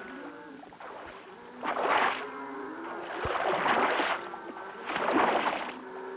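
Three loud splashes of cattle plunging into river water, about two, four and five seconds in, over background music.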